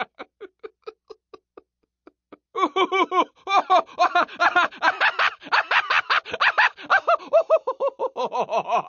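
A cartoon character's laughter, quick 'ha-ha' pulses that trail off. After a short pause a louder, longer fit of laughter starts, its pitch dropping toward the end.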